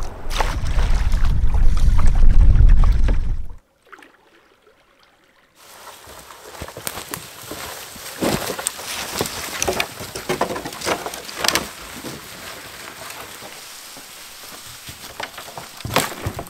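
Canoe paddling on open water over a loud low rumble, which cuts off suddenly after about three and a half seconds. After a short quiet gap come many sharp, irregular cracks and snaps of dry dead branches being broken and dragged over the forest floor.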